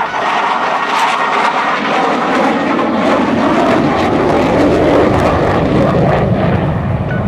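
Propeller-driven aerobatic airplane's engine running, the sound growing deeper and stronger from about halfway through.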